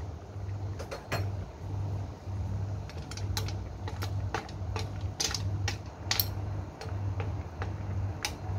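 Metal spoon clinking against snail shells and the wok while stirring sea snails simmering in a wine sauce: scattered sharp clinks. Under them a low hum pulses on and off about every two-thirds of a second.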